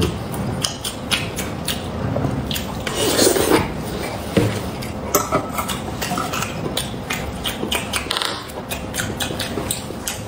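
A man chewing meat and sausage with his mouth full: wet smacking and rapid clicks of lips and tongue throughout.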